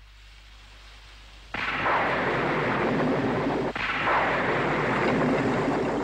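A thunderstorm sound effect: a sudden crash of thunder about a second and a half in, then steady heavy rain and rumbling, with a second crash a couple of seconds later.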